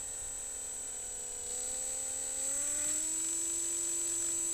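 Motor and propeller of a small RC plane running steadily, with a high steady whine over the hum; the pitch rises a little about two and a half seconds in as the throttle opens.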